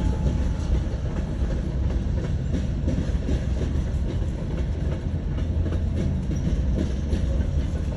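Freight train of covered hopper cars rolling past: a steady low rumble with the wheels clicking over the rail joints.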